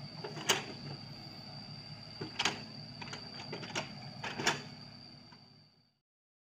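Sany SY55C mini excavator running steadily, with a steady high whine and four sharp knocks from the machine at work. The sound fades out to silence about six seconds in.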